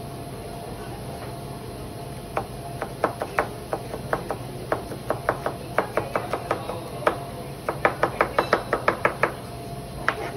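Kitchen knife chopping on a cutting board: scattered strokes start about two seconds in, then a quick even run of about six strokes a second near the end.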